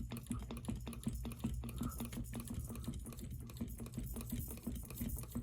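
Flush-mount three-blade ceiling fan running with a low hum and a rapid, even ticking, which the owner thinks could come from the wobbling base working the screws that hold the motor housing.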